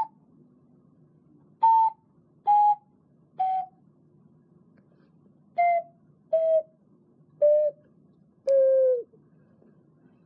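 A 12-hole alto C ceramic ocarina played in short separate notes stepping down in pitch, with pauses between them, the last and lowest note held longer. Each note starts with a breathy puff and sags slightly in pitch as it ends.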